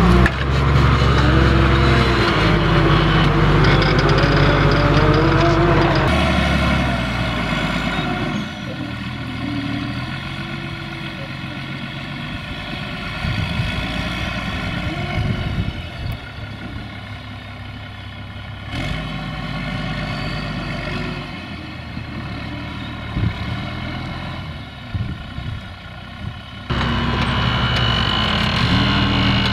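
Fiat 1380 DT tractor with an Iveco 180 hp diesel engine running under load while pulling a disc harrow, the steel discs crunching through soil and stubble. The sound is loudest in the close shots at the start and near the end, and quieter in between.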